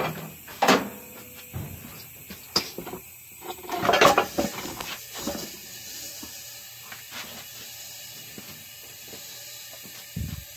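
A tire and wheel being lifted and set down onto the cone of a bubble wheel balancer: several knocks and scrapes, the loudest clunk about four seconds in, then only a few faint clicks as the wheel settles.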